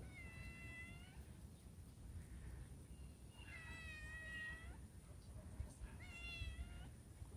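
Cat meowing three times, each meow drawn out for about a second: at the start, about four seconds in, and again about six seconds in.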